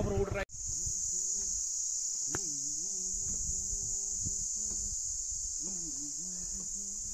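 A steady, high-pitched insect drone in a pine forest, unbroken throughout. Faint distant voices can be heard under it. In the first half-second a motorcycle engine is heard, and it stops abruptly.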